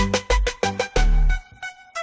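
Background music with a steady electronic beat and bass, which drops out briefly near the end.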